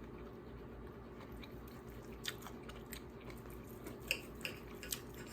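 Faint chewing of a mouthful of chicken casserole, with a few soft clicks, one about two seconds in and three more in the second half.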